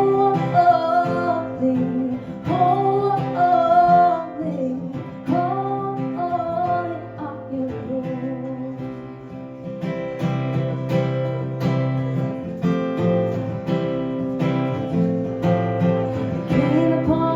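Acoustic guitar strummed steadily in a song. A voice sings a drawn-out melody over it for the first several seconds, then the guitar plays on alone.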